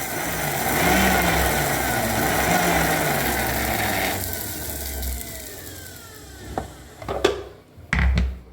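Mixer grinder running with rock salt in its jar, grinding the salt to sharpen dull blades. About four seconds in the motor is switched off and winds down with a falling whine, followed by a few sharp knocks near the end.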